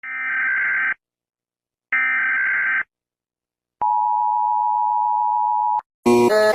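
Emergency Alert System alarm: two raspy one-second bursts of the digital header code a second apart, then the steady two-note attention tone held for about two seconds. Electronic music cuts in just before the end.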